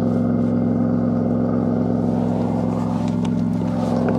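A boat engine running at a steady speed, an even, unchanging drone.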